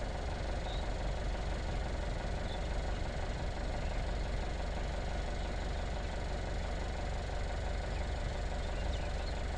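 A vehicle's engine idling steadily, with a low, even hum.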